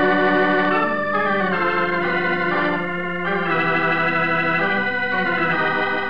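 Organ music bridge: held, sustained chords that change several times, marking the break between the commercial and the return to the drama.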